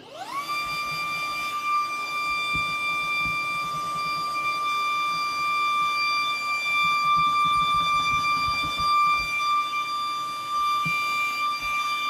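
Vacuum cleaner switched on, its motor quickly whining up to a steady high pitch and running on as the nozzle sucks dust out of the PC case.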